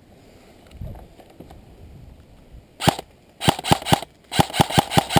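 Airsoft rifle firing: one shot about three seconds in, then two short bursts of rapid shots, around ten a second. A low thump about a second in.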